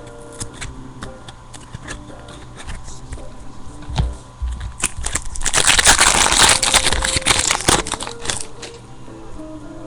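A baseball card pack's wrapper being opened: a loud burst of crinkling for about three seconds in the middle, amid small clicks and flicks of cards being handled. Soft music plays in the background.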